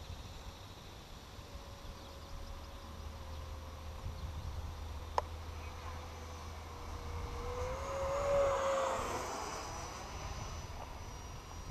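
Electric ducted fan of an E-flite Viper 70mm EDF jet whining in flight, growing louder and briefly rising in pitch as the jet passes closest about eight seconds in, then fading. A single sharp click about five seconds in.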